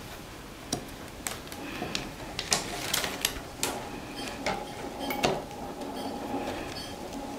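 Soaked willow rods clicking and creaking against each other as a rod is bent and wrapped around itself on the hoop frame of a Leitrim potato basket: irregular light clicks, one or two a second.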